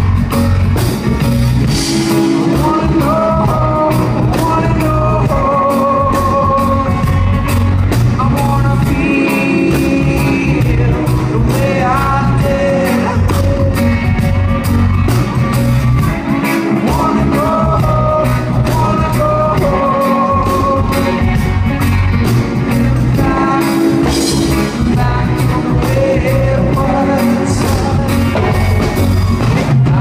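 Live reggae band playing in a concert hall: drums and bass keeping a steady beat, with electric guitar and a sung vocal melody over the PA.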